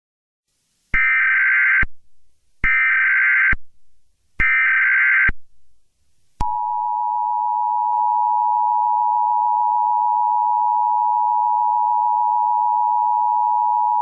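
Emergency Alert System SAME header: three short bursts of buzzing data tones about a second long, each followed by a brief gap, then from about six seconds in the steady two-tone EAS attention signal. Together they open an all-clear alert (emergency action termination).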